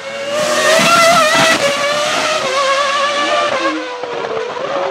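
Williams-BMW FW26 Formula One car's 3-litre V10 at high revs, a loud high-pitched engine note passing close by. It is loudest in the first second and a half, then fades as the car pulls away.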